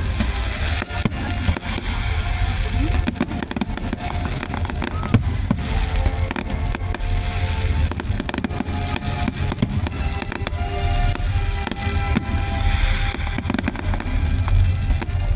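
Fireworks display: repeated cracks and bangs of bursting shells over loud music with a heavy bass and drum beat.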